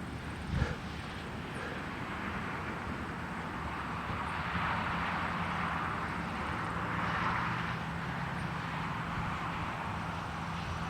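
Distant jet aircraft running on the ground: a steady rushing noise over a low, even hum, swelling slightly midway.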